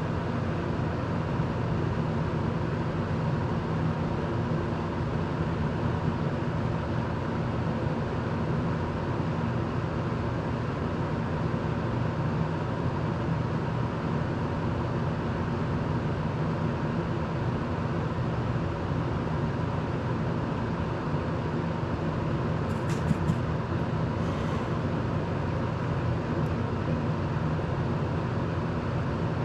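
Electric circulator fan running steadily, a constant hum; a couple of light clicks about three-quarters of the way through.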